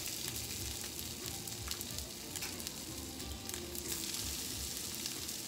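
Black bean burger patties frying in hot oil in a skillet over medium-high heat: a steady sizzle with scattered crackles.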